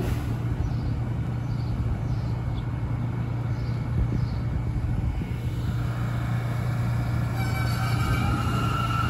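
New York City subway train running on the elevated steel structure with a steady low rumble. About two-thirds of the way through a high steady whine joins in and grows louder as an R179 subway train arrives at the elevated platform.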